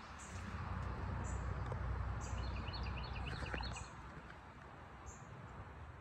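Birds singing outdoors: a quick run of short repeated notes a little over two seconds in, over a high chirp that repeats about once a second. A low rumble sits underneath and drops away about four seconds in.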